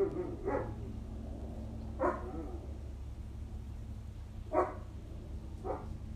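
A dog barking four times, single short barks a second or two apart.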